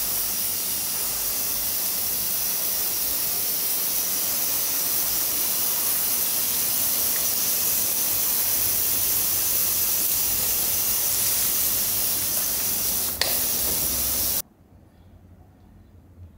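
Water hissing steadily from a hose spray gun as a fine mist onto flagstones, wetting the lime-and-sand mortar joints so the mortar will set. A single click comes near the end, just before the hiss cuts off suddenly.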